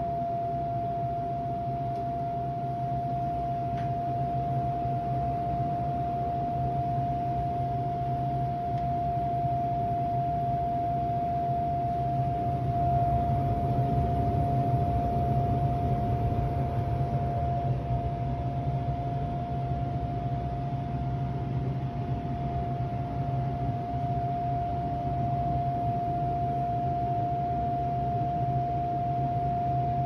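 Goodman AWUF190816 air handler running with a steady high-pitched whistle, one unbroken tone held over the rush of air and a low hum. The whistle comes with every start-up of the new system, and its cause is unknown: a replaced blower motor has not cured it.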